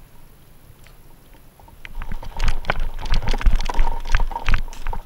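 Running footfalls, gear rattle and wind buffeting on the microphone, starting about two seconds in as a dense run of irregular knocks and thuds.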